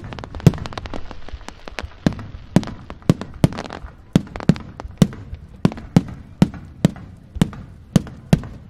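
Fireworks display: a rapid, fairly even series of sharp bangs from aerial shells, about two to three a second, with a steady hiss under the first few seconds.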